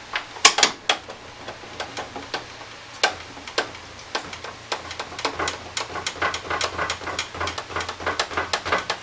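Blade-raising mechanism of a Ridgid contractor table saw clicking as the blade and motor assembly is cranked up through its range. The clicks come scattered at first, then quick and fairly even, about five a second, through the second half.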